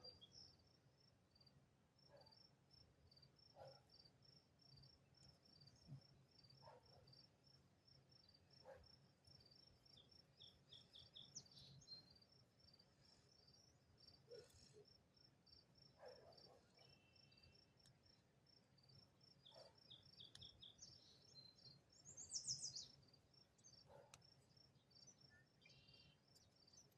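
Faint, steady rapid chirping of a cricket over near-quiet outdoor background, with a few soft handling knocks and rustles scattered through. A brief higher chirp, likely a bird, rises above it near the end.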